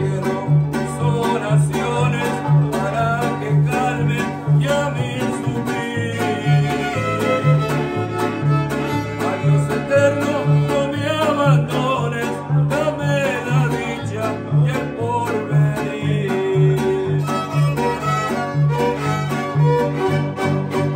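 Mexican string ensemble playing: two violins carry the melody over a strummed guitar and the bass of an arpa grande, whose bass notes pulse in a steady rhythm.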